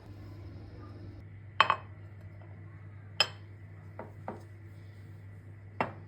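Kitchenware clinking: a few sharp, separate clinks of dishes and utensils set down or knocked together, over a steady low hum.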